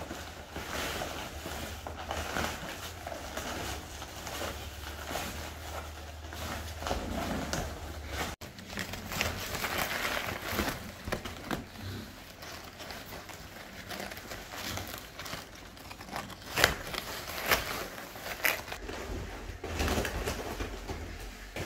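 A white plastic liner bag and a woven polypropylene sack rustling and crinkling as they are handled and the liner is tied shut, with a few louder crackles in the second half.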